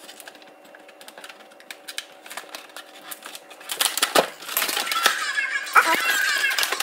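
Hands handling a doll box's cardboard insert with clear plastic tabs. At first there are light clicks and taps, then about four seconds in comes louder rustling and scraping of card and plastic as the sheet is lifted.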